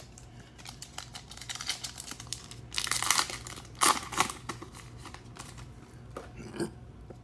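Trading-card pack wrapper being torn open and crinkled by hand, crackling in irregular bursts with the loudest rips about three and four seconds in and a last short crinkle near the end.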